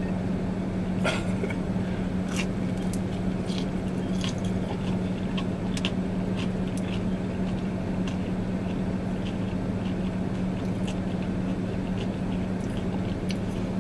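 Close-up chewing and biting: wet mouth noises and scattered sharp clicks from someone eating. Under it is the steady low hum of the car running.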